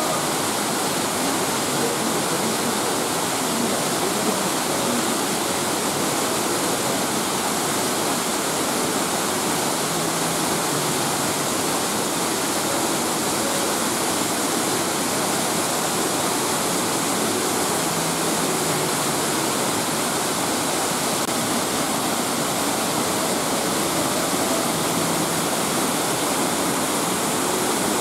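Fukuroda Falls, a tiered waterfall, rushing steadily as its water pours in many thin streams down and over the rock face.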